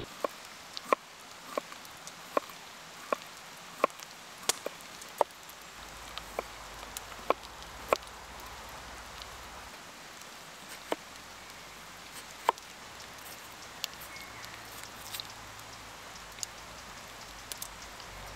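Knife cutting vegetables on a cutting board, a sharp cut about every 0.7 s for the first eight seconds, then only now and then. Behind it is a steady hiss from potatoes and onions frying in oil in a pot over the fire.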